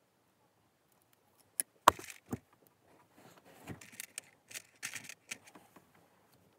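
Handling noise from speaker wire being routed and tucked behind the car's rear-deck trim: a sharp click and a knock about two seconds in, then scattered rattling, rustling and small clicks.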